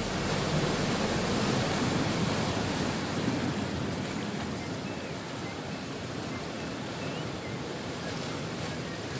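Sea surf washing against the shore as a continuous rushing noise, swelling over the first few seconds and then easing slightly.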